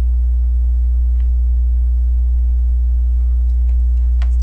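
Loud, steady low electrical hum. Faint clicks of plastic LEGO pieces being handled come about a second in and again near the end.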